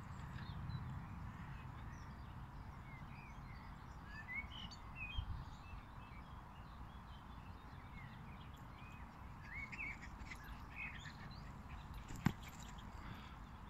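Small birds chirping and singing faintly in short scattered calls over a low steady rumble, with a single sharp click about twelve seconds in.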